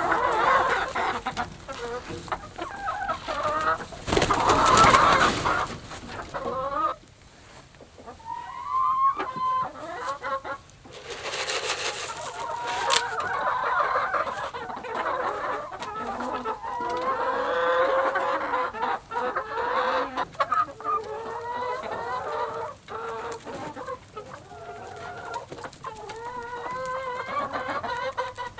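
Chickens in a hen house clucking and calling continuously, with two loud rushing noises about four and eleven seconds in.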